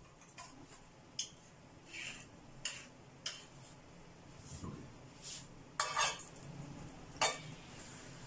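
A metal spoon clinking and knocking against kitchen dishes as desi ghee is scooped out to grease a non-stick frying pan: a scattering of short clinks, the loudest about six and seven seconds in.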